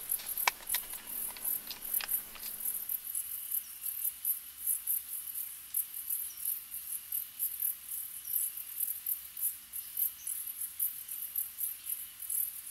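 Crickets chirping in a grassy meadow: high chirps repeating evenly, about four a second, over a faint steady high buzz. A few light clicks come in the first couple of seconds.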